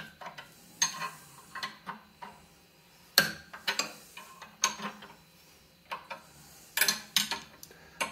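Wrench turning the screw of a bearing puller in short strokes, giving about a dozen irregular sharp metal clicks and clinks as it reseats on the hex. The puller is drawing the top spindle bearing off a Powermatic drill press.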